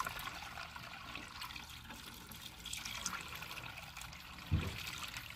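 Tap water pouring from a plastic jug through a plastic funnel into a truck's coolant reservoir, a steady trickle and splash, as the cooling system is filled with water for a flush. A short, soft thump about four and a half seconds in.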